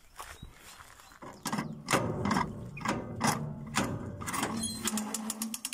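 Pick-up lift mechanism on a John Deere 349 square baler being worked by hand to raise the pick-up: metal clicking and clanking in an even rhythm of about two strokes a second, starting about a second in and quickening near the end.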